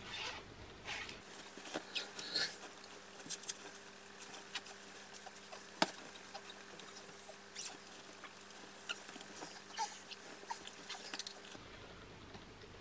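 Rustling and crinkling of a disposable nappy and bedding being handled during a baby's nappy change, with many small scattered clicks and crackles.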